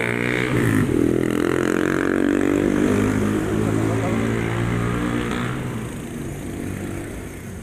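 A motor vehicle's engine passing close by on the street, its pitch shifting as it accelerates, then fading away over the last couple of seconds.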